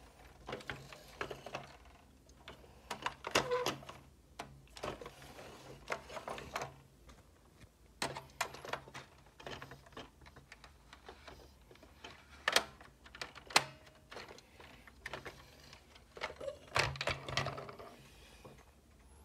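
Hard plastic Wen Sheng bump-and-go toy car being handled: scattered clicks, taps and short rattles as its body and door are worked by hand, with two sharper clicks about twelve and thirteen and a half seconds in.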